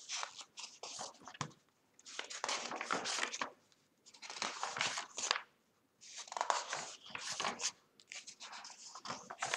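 Paper rustling as the pages of a thin paperback picture book are opened and turned by hand, in about five short bursts of crinkling and sliding.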